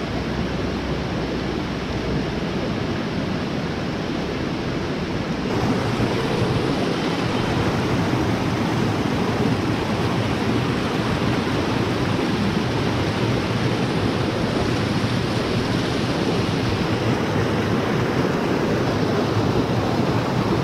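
Mountain stream rushing over rocks and small cascades: a steady rushing of water that gets louder about five seconds in.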